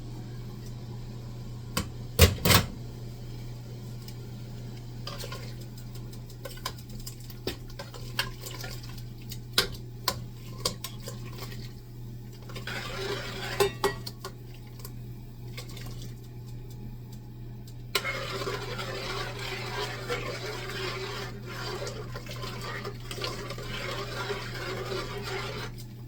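Pot and utensil clatter as the cornmeal mixture goes into the pot of porridge, loudest about two seconds in, then longer stretches of stirring in the pot. A steady low hum runs under it all.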